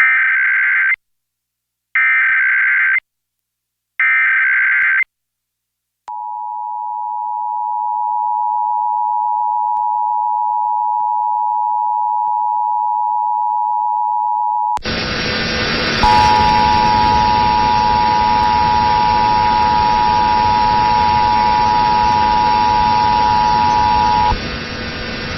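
Emergency Alert System test signal. First come three one-second bursts of the SAME digital header data, two seconds apart. Then the two-tone EAS attention signal (853 and 960 Hz) holds steady for about nine seconds. The audio then switches to a hissy, static-laden broadcast, where a steady attention tone sounds again for about eight seconds.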